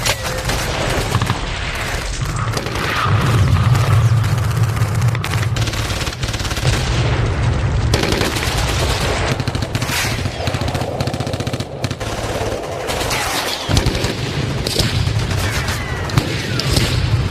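Battlefield sound effect: rapid machine-gun fire and scattered gunshots over a continuous low rumble of booms, with the rumble dropping out briefly about two-thirds of the way through.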